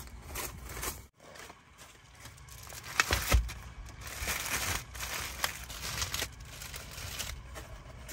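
Plastic bags crinkling and rustling as bagged food trays are handled and set down in a car's cargo area, with a thump about three seconds in.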